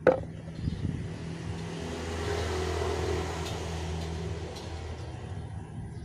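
A sharp clack as the horn-speaker driver's parts are handled, then a low engine rumble that swells over a couple of seconds and fades away.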